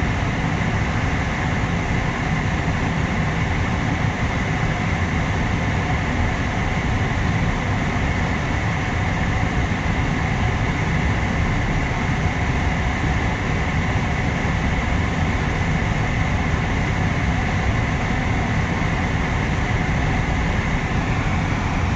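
Freight cars of a long mixed freight train rolling past on the rails: a steady rumble with a steady high whine running through it.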